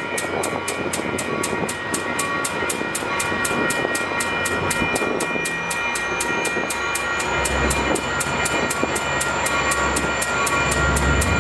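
Metra diesel commuter locomotive coming out of a tunnel, its bell ringing rapidly and evenly throughout. The engine's low rumble builds over the last few seconds as it draws near.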